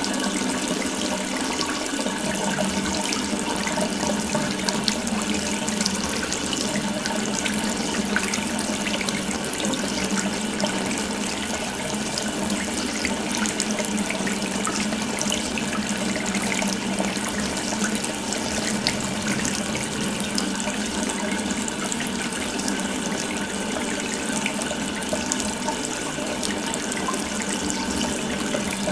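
Water running steadily from an open tap, a continuous splashing stream with no change in flow.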